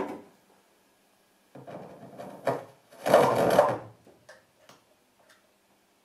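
Improvised noise from cello and no-input mixing board: short, irregular bursts of scratchy noise and clicks, the loudest a little after three seconds, thinning out into a few scattered ticks.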